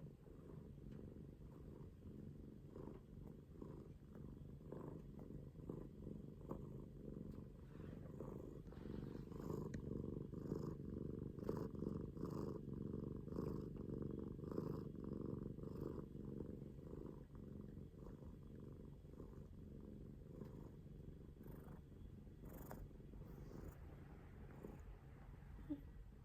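A drowsy domestic cat purring steadily, a low rapid rumble that swells a little louder for a while partway through.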